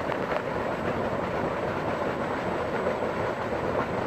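Solar-powered tube well pump discharging water: a thick jet gushes from the steel outlet pipe and splashes into a flowing channel, a steady rushing of water.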